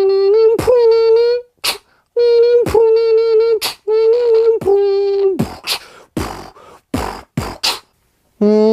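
Mouth sound effects in a beatbox style: a held, steady vocal tone, broken three times by sharp pops, then a run of about six short percussive clicks and snaps.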